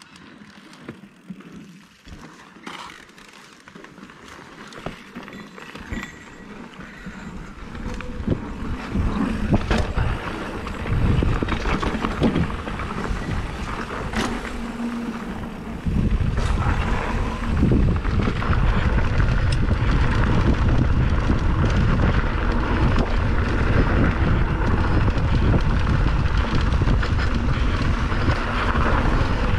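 Mountain bike rolling along a dirt trail: tyres rumbling over the ground, with scattered clicks and rattles and wind buffeting the microphone. It grows louder as speed builds, then about halfway through settles into a steady loud rumble.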